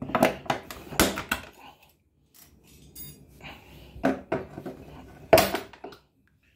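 Metal clips being prised off the rim of a washing machine's plastic tub with pliers: a series of sharp clicks, clinks and knocks with short pauses between, the loudest about five seconds in.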